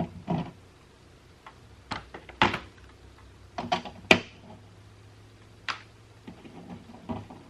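Scattered short knocks and clicks as the old RV door window and its frame are handled and worked loose from the door.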